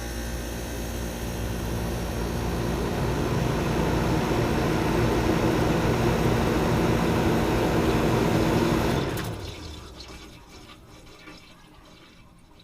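Water rushing inside an automatic washing machine, a steady gush over a low hum, swelling slightly and then dying away about nine seconds in.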